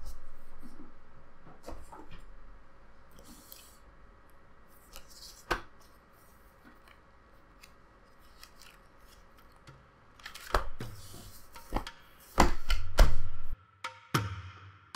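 Sketchbooks being handled on a wooden table: covers and paper pages rustling as a spiral-bound sketchbook is flipped open to a blank page, with scattered knocks as the books are moved and set down. The loudest handling comes in a cluster about ten to thirteen seconds in.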